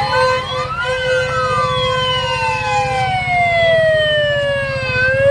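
A wailing siren: its pitch climbs quickly, then falls slowly over about four seconds and begins to climb again near the end. A second steady, held tone sounds with it, and a low, rapid throbbing runs underneath.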